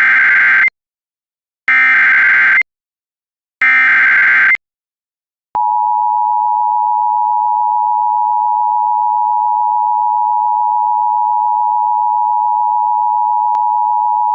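Emergency Alert System signals: three loud one-second bursts of SAME header data, each a second apart. About five seconds in, the steady two-tone EAS attention signal starts, the alarm that opens a flash flood emergency alert.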